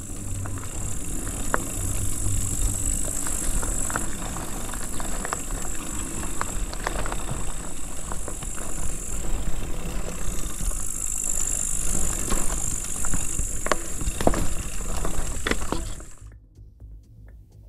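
Downhill mountain bike (Cube Two15) rolling over gravel, with steady tyre noise and frequent sharp clicks and rattles from the chain and frame. It cuts off about a second and a half before the end.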